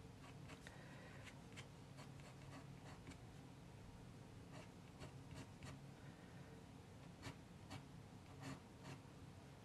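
Pencil sketching on paper: faint, irregular scratchy strokes, some short and some drawn out, over a low steady hum.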